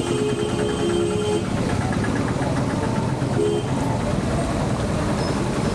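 Busy road traffic: a vehicle horn sounds until about a second and a half in and briefly again later. Motor scooter and auto-rickshaw engines run past, with voices from people on the street.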